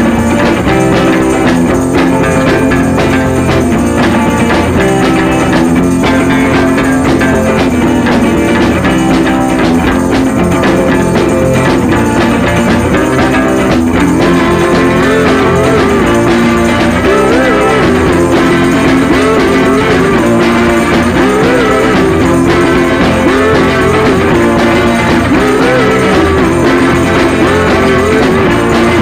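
Background music with a steady beat, loud and continuous; a wavering melody line comes in about halfway through.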